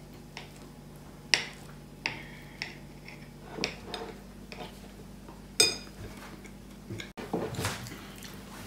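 Knife and fork clinking and scraping against a ceramic plate as a pancake is cut, a few sharp clinks spread out. The loudest comes about five and a half seconds in and rings briefly.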